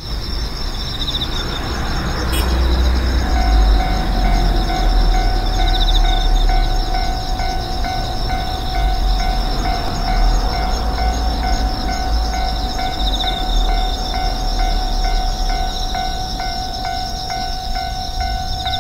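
A train passing with a steady low rumble, laid over autumn street ambience. About three seconds in, a repeating ring about twice a second joins in and keeps going.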